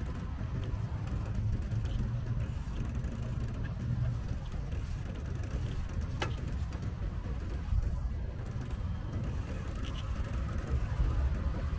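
Steady low rumble of city road traffic, with a single sharp click about six seconds in.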